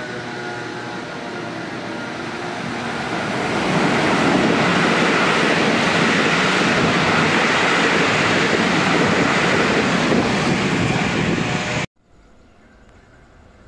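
Taiwan Railway train passing close by at high speed: a steady approaching rush with faint steady tones in it, swelling about three and a half seconds in to a loud, dense rush of wheel and air noise. It cuts off suddenly near the end, leaving a much quieter sound that slowly rises.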